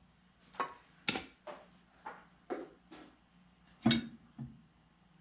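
A series of about eight light metallic knocks and clinks at irregular intervals, the loudest about four seconds in, as a tractor's flat sheet-metal oil pan is worked loose from the engine block once its bolts are out.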